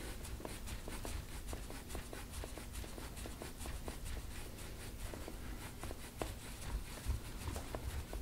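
Deep-tissue massage on a patient's back: skin rubbing under working hands, with many faint irregular clicks and ticks over a low rumble.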